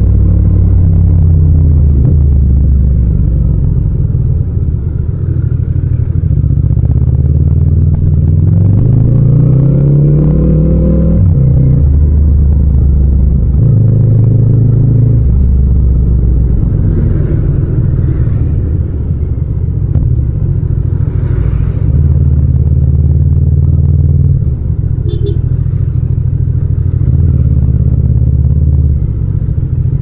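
Yamaha MT-07's 689 cc parallel-twin engine running as the bike rides through town traffic, the engine note rising and falling with the throttle. About eight seconds in the revs climb steadily for a few seconds, then drop off suddenly.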